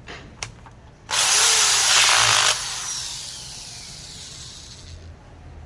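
A small electric power tool runs at full speed for about a second and a half, then is switched off and winds down, its high whine falling in pitch as it slows.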